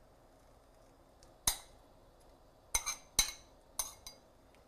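A metal spoon clinking against a bowl as chopped spinach is scraped out of it into a pan: six sharp, ringing clinks at uneven intervals, the first about a second and a half in.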